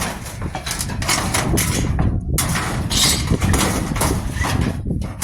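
A barrel being pushed back across a truck bed among loaded scrap, with scraping and irregular knocks and clanks.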